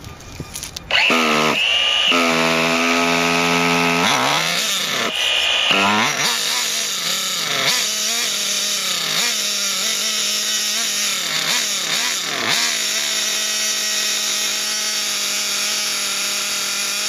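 Small two-stroke glow (nitro) engine of a Hobao Hyper 28 RC car starting up about a second in and running, its pitch dipping and rising a few times in the first seconds before settling into a steady high-pitched run with a couple of brief blips.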